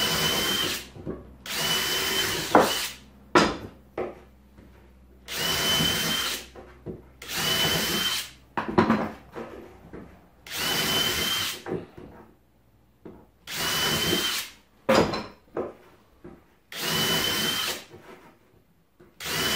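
Cordless drill boring holes through small plywood blocks in about seven short runs of roughly a second each, a few seconds apart, each with a steady high whine. Sharp knocks of the wood pieces being handled fall between the runs.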